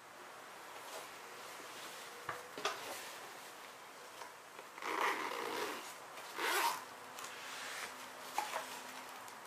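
The zipper on the Zempire Kitpac Spike table's fabric carry case being pulled open in two long strokes, about five and six and a half seconds in. A few light knocks and clicks from handling the case come before and after.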